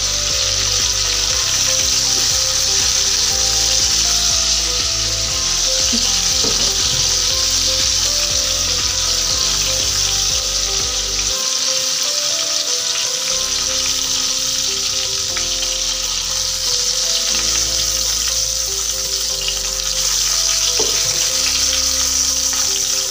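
Chicken pieces shallow-frying in hot oil in a pan: a steady sizzle that holds throughout.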